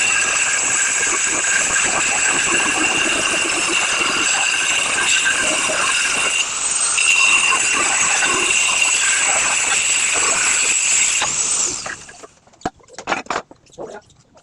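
Angle grinder cutting tile: a steady high whine over gritty cutting noise. The grinder stops about 12 seconds in, and a few sharp clicks follow.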